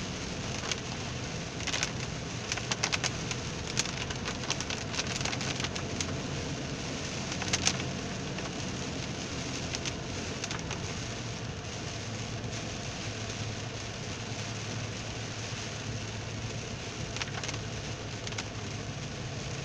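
Heavy rain drumming on a car's roof and windshield, heard from inside the cabin over the car's steady low drone. A flurry of sharp taps comes in the first several seconds.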